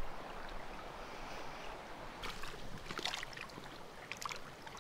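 Soft water sounds: light splashing and dripping, with a cluster of small sharp splashes in the second half, as a small smallmouth bass is released back into the lake.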